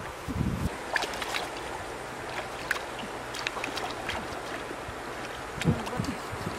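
Shallow river water lapping and splashing as a plucked duck carcass is rinsed in it, with scattered sharp ticks and splashes over a steady wash of water. Wind buffets the microphone about half a second in and again near the end.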